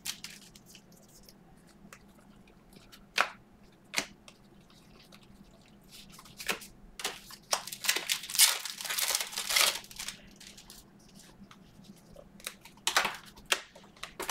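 Trading-card pack wrappers crinkling and tearing as packs are opened and cards handled, in separate sharp snaps with a busier stretch of crinkling in the middle.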